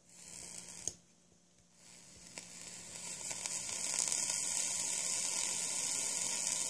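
Coil of a Genesis-style rebuildable vape atomizer (0.8-ohm 28-gauge coil on a rolled stainless mesh wick) sizzling as it is fired and the e-liquid boils off. A short hiss ends in a click just under a second in, then the sizzle builds from about two seconds in, holds steady and cuts off sharply with a click.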